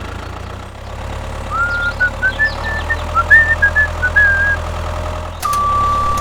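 A small engine running steadily, with a string of short rising chirps over it in the middle. A steady high beep starts suddenly near the end.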